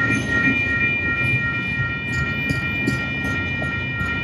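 Double-stack intermodal train cars rolling past: a steady low rumble of wheels on rail, with several steady high-pitched tones held over it and a few light clicks about two to three seconds in.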